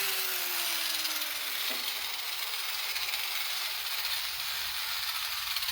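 Small angle grinder spinning down after being switched off: its whine falls steadily in pitch and dies out about two seconds in, leaving a steady hiss.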